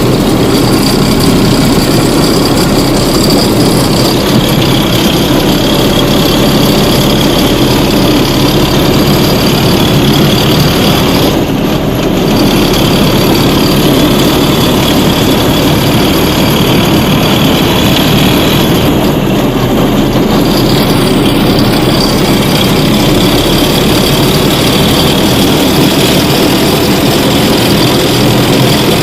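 Homemade mini-tractor's engine running loud and steady while under way.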